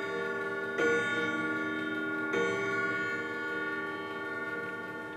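Grandfather clock chime rods struck by the movement's hammers, twice about a second and a half apart, each note ringing on and slowly fading while the hammers are set to the new rods.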